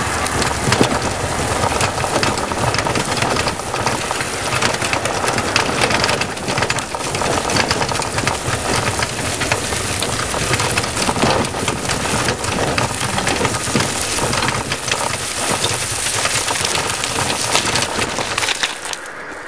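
Bicycle and trailer tyres rolling fast over a rough gravel and dirt track: a dense crunching and rattling. It drops away shortly before the end as the wheels reach smooth asphalt.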